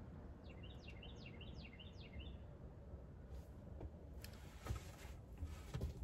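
A bird singing a short phrase of about five quick, descending whistled notes, starting about half a second in and lasting some two seconds. A few soft knocks follow near the end.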